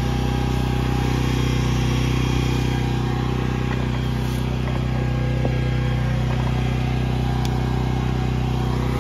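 Engine of a hydraulic power unit running steadily at constant speed, driving a 100-ton hydraulic track pin press as it pushes a link pin out of an excavator track.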